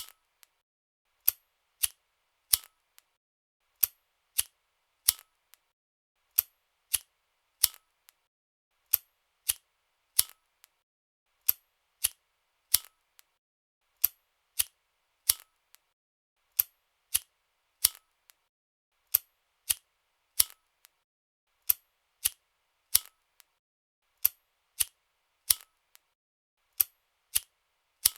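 A lighter clicking over and over in a regular pattern: sets of three sharp metallic clicks and a fainter fourth, repeating about every two and a half seconds, with no flame hiss between them.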